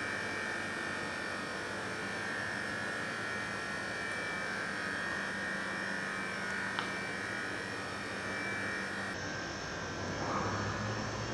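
Steady mechanical drone with hiss, a room's background machine noise. Its tone changes at a cut about nine seconds in.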